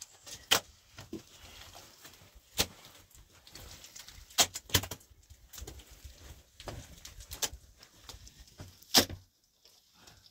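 A series of sharp knocks at irregular intervals, six clear ones over ten seconds with fainter ones between, the loudest near the end.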